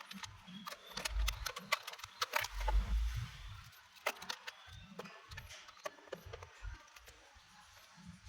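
Scattered small clicks and knocks of a long socket wrench working a dashboard bolt loose, thickest in the first half, with a couple of dull bumps about a second and three seconds in.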